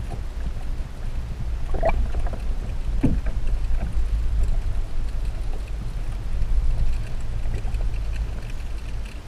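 Low, steady muffled water rumble picked up by an action camera held underwater in its waterproof housing, with two brief higher-pitched sounds about two and three seconds in.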